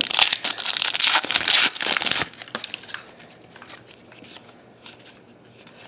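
A basketball trading-card pack wrapper crinkling and tearing open by hand for the first two seconds or so. It then gives way to the softer, scattered clicks of the cards inside being shuffled through.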